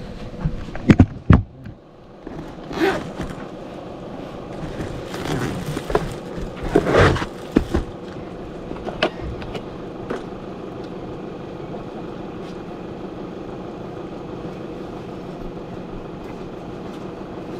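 Handling noise: two sharp knocks about a second in, then scattered rustles and a few clicks, over a steady low hum.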